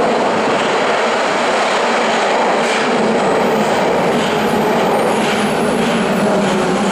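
A Nagoya Municipal Subway 5050 series train running into an underground station platform: a loud, steady noise of wheels on rail and running gear as the cars pass close by.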